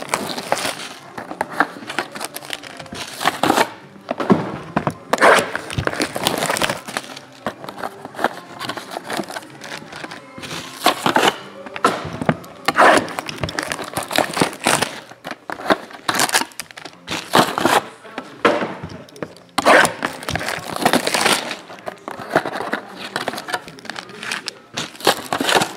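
Plastic shrink wrap being torn off sealed trading-card boxes and crinkled, with the boxes opening and foil card packs rustling, in irregular crackling bursts.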